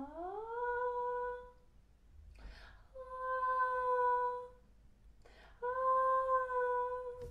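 A woman humming three long, held notes at about the same pitch, the first sliding up into place, with short pauses between them. She voices the melody's long notes as they should be sustained in the imagination.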